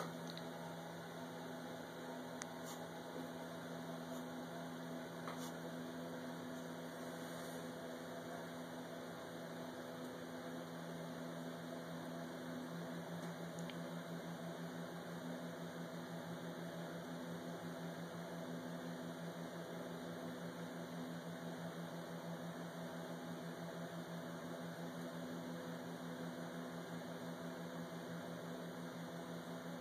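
Steady mechanical hum with a few held low tones over a faint hiss.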